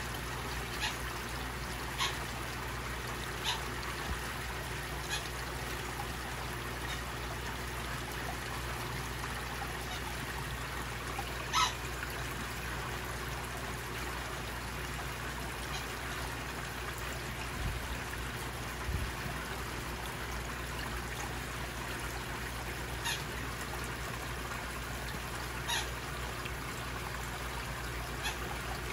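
Steady trickle of water running into a koi pond over a low hum, with a short sharp splash every second or two; the loudest splash comes about twelve seconds in.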